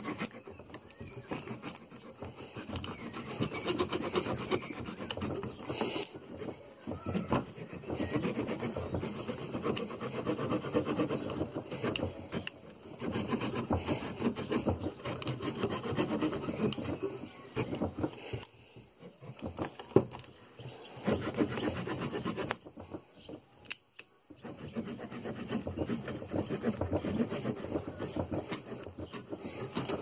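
Saw blade of a pocket multitool cutting through a thin wooden branch: quick back-and-forth sawing strokes in runs of several seconds, with brief pauses between runs.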